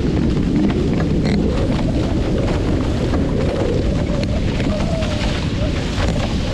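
Steady wind buffeting the microphone and water rushing past a Hobie FOX sailing catamaran under sail, a continuous rough noise heaviest in the low end.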